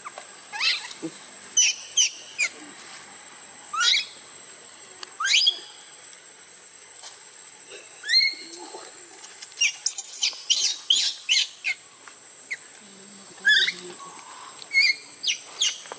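Newborn baby monkey crying: short, high-pitched squeals that rise in pitch, coming in irregular bursts, most thickly about ten to twelve seconds in.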